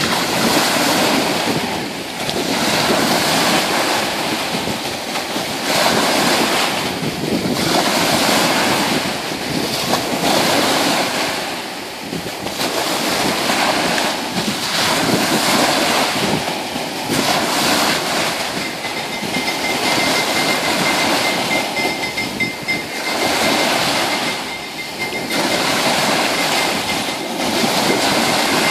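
Small sea waves breaking and washing up over a sandy shore, the surf swelling and easing every few seconds.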